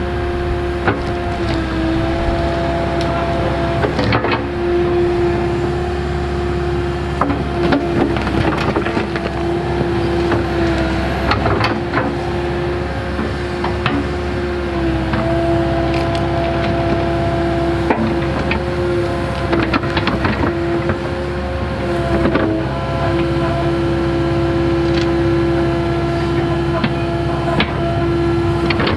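Kubota KX080-4 excavator's diesel engine and hydraulics running under load with a steady whine. The pitch sags briefly several times as the hydraulics load up while the bucket digs out a tree stump. Scattered knocks and cracks come from the bucket working the roots and soil.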